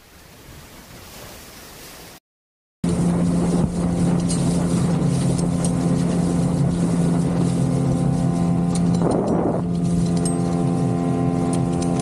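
Faint wash of sea and wind, then after a short cut an inflatable boat's outboard motor running steadily and loudly, with a brief rush of noise about nine seconds in.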